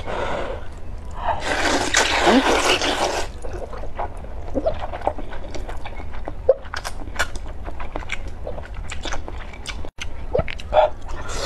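A person slurping rice noodles and broth from chopsticks. There is one long loud slurp starting about a second in and lasting about two seconds, followed by many short wet mouth clicks and smacks as the noodles are drawn in and chewed.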